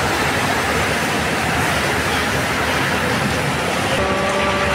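Steady loud rushing noise of a train at a railway station platform. About four seconds in, a held steady tone joins it.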